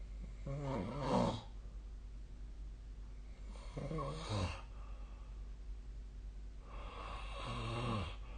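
A person snoring: three snores on successive breaths, about three seconds apart, each lasting about a second with a wavering pitch.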